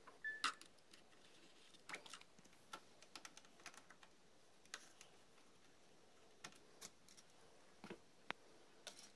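Faint, scattered clicks and ticks of a small Phillips screwdriver driving tiny screws into a laptop screen's metal hinge brackets, with one brief squeak just after the start.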